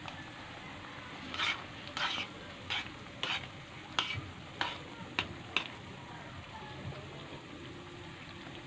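Metal spoon stirring bottle gourd and pork in a simmering broth, scraping and clinking against the metal pan about eight times at an even pace over a few seconds. Under it runs the steady bubbling of the simmer.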